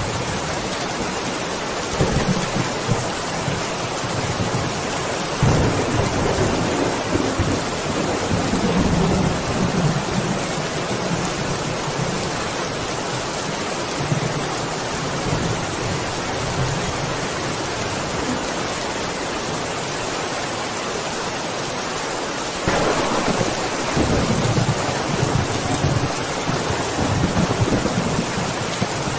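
Steady rain with rolls of thunder: a short rumble about two seconds in, a longer one from about five to ten seconds, and another that starts suddenly about three quarters of the way through.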